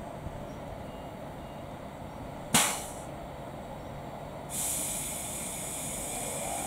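Class 390 Pendolino electric train standing with its equipment running steadily. About two and a half seconds in there is a sudden sharp burst of hissing air that dies away within half a second. A steady high hiss of air starts about two seconds later and carries on, the sound of the air brakes releasing before it pulls away.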